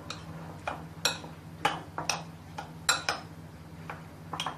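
Metal spoon clinking against a ceramic bowl while stirring yogurt raita: irregular sharp clinks, about two a second, with the soft scrape of the thick mixture between them.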